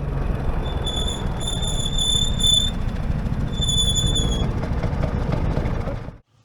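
Rear brake of a Vespa GTS 300 SuperSport squealing high-pitched under braking, twice: a squeal of about two seconds, then a shorter one, over steady riding and wind noise. The dealer traced the squeal to the rear brake pads and cured it by chamfering their edges.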